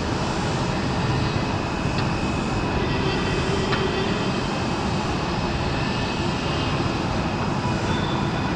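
Jet airliner engines running at an airport, a steady rushing noise that holds an even level throughout.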